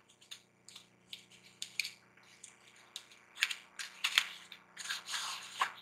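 Cardboard packaging of an eyeshadow palette being handled and opened: scattered light clicks and taps, then about two seconds of rustling and scraping as the palette comes out of its box.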